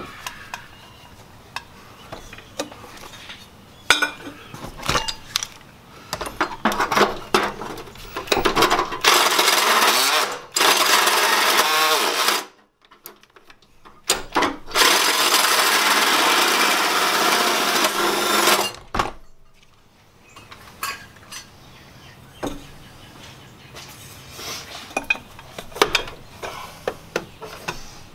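Power drill driving a 3 1/4-inch hole saw through sheet metal, running hard for two long stretches of several seconds, about nine and fourteen seconds in, with a short pause between. Clanks and taps of tools and parts being handled come before and after.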